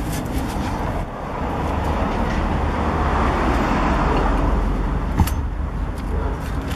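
A car passing on a nearby road: a rushing road noise with low rumble swells over a few seconds and then fades. A single sharp click comes about five seconds in.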